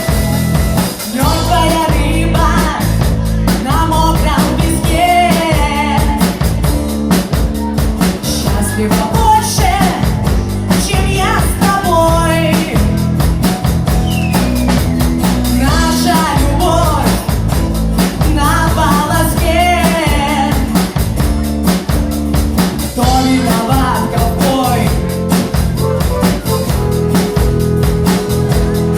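Rock band playing live: drum kit, bass and guitar, with a wavering lead melody line that comes in phrases over the steady beat.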